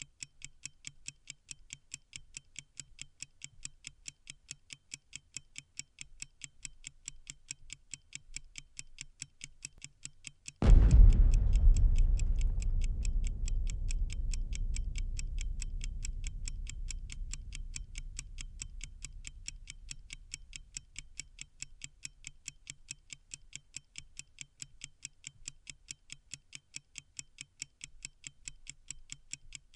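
Steady clock-like ticking sound effect. About ten seconds in, a sudden deep boom cuts in over it and dies away slowly.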